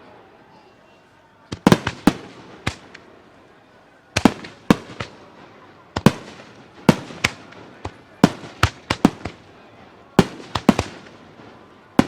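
Aerial firework shells bursting: sharp bangs in quick clusters of two to four, one cluster about every second or two, each bang dying away briefly.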